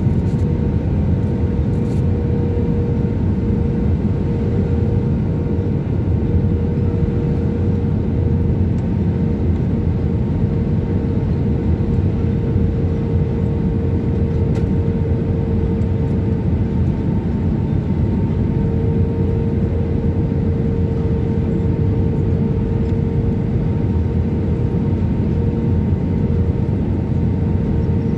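Airbus A319 cabin noise on approach with flaps extended: a steady roar of engines and airflow, with a constant hum running through it.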